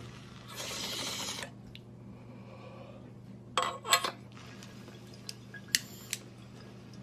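A breathy exhale of smoke about half a second in, then glass clinking and tapping as a glass bong is handled, with a cluster of clinks in the middle and a few single clinks later, over a steady low hum.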